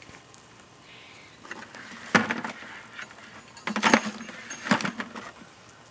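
Metal camp cooking gear clinking and rattling as it is handled, in three short clattering bursts about two, four and nearly five seconds in.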